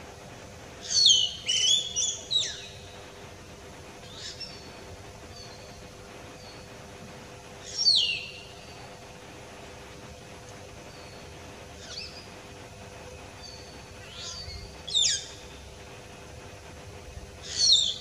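Common hill myna calling: loud, shrill whistles that sweep steeply downward in pitch. A quick run of three or four comes about a second in, then single calls every few seconds, with fainter short whistles between.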